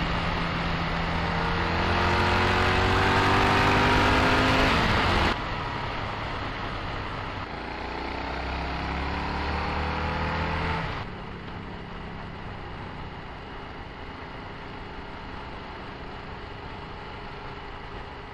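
Motorcycle engine accelerating. The revs climb for a few seconds and fall back about five seconds in, then climb again. At about eleven seconds the engine drops to a quieter, steady run.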